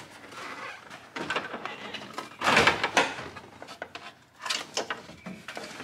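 Plastic upper instrument panel of a 2007–14 Chevy Silverado knocking and scraping against the dash frame as it is worked into place by hand, with two loud clunks about halfway through and a few sharper knocks near the end.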